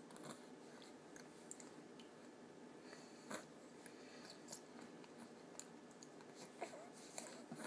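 Faint wet mouth clicks and smacks of a baby eating pear puree from a squeeze pouch. A few sharper clicks are scattered through, the loudest near the end.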